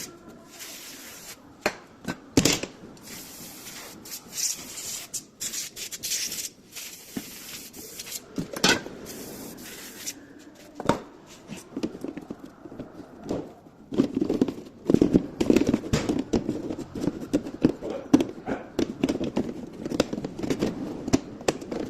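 Hand work on a car window regulator's parts: irregular clicks, knocks and rattles of small metal and plastic pieces. Short hissing bursts come in the first half, and denser rattling and rubbing in the second half.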